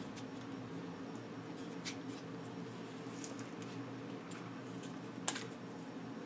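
Faint clicks and rubbing from hands fitting and adjusting the electric bike kit's handlebar parts: throttle, grips, LCD mount and cables. One sharper click comes about five seconds in, over a steady low background hum.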